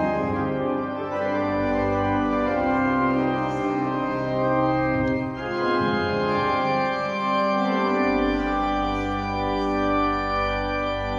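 Two-manual organ playing a hymn improvisation in sustained full chords. Deep bass notes come in underneath about a second and a half in, drop out around five seconds, and return near the end.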